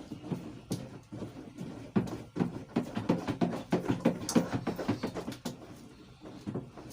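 Irregular knocks and clicks of containers and utensils being handled while homemade hair conditioner is packaged, busiest in the middle.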